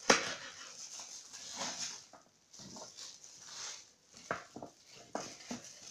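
Kitchen knife slicing raw pumpkin into strips on a cutting board: irregular cuts and taps of the blade against the board, the loudest right at the start.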